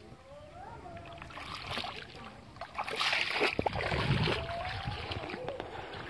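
Footsteps wading and splashing through shallow floodwater and wet grass, loudest about three to four and a half seconds in.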